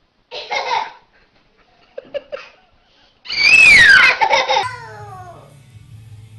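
A baby laughing: a short burst of laughter, a few small sounds, then a loud, high-pitched squealing laugh that falls in pitch about three seconds in.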